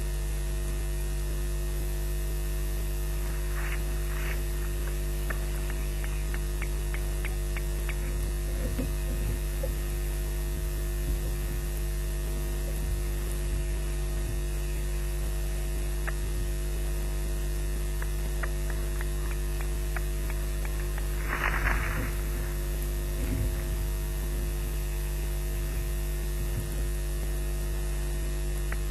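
Steady electrical mains hum with many overtones on a live nest camera's audio line, with scattered faint clicks and two brief noisy bursts, the louder one about three quarters of the way through.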